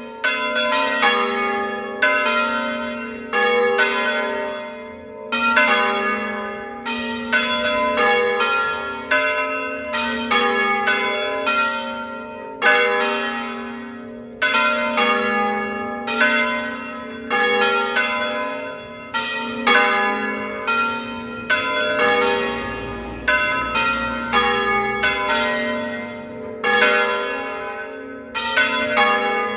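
Three bronze church bells cast by Cavadini of Verona, swung full circle in the Veronese style and ringing together in a continuous festive peal calling to Mass. The strokes fall about once a second in shifting order, each ringing on under the next.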